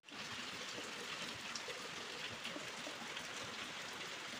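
Heavy rain falling on a concrete yard: a steady hiss of drops splashing on the wet ground.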